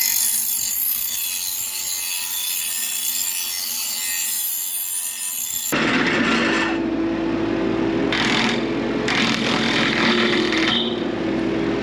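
Brush cutter blades being sharpened with a power tool: a steady, high grinding hiss. About six seconds in the sound cuts to a fuller grinding noise over a steady low hum, brightening in stretches.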